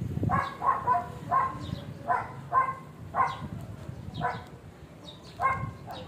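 A dog barking, about nine short barks, several in quick succession at first and then a few more spaced a second or so apart.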